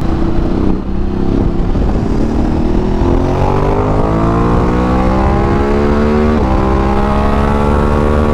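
Ducati DesertX's 937 cc Testastretta V-twin under acceleration on the move: the revs climb steadily, drop suddenly with an upshift about six seconds in, then climb again.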